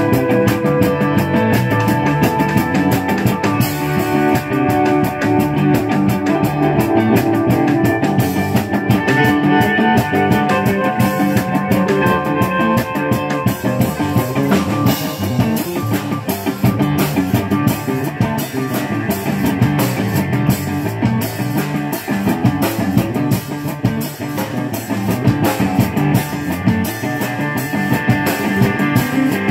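Live rock band playing an instrumental passage with no singing: electric guitars, bass guitar and drum kit.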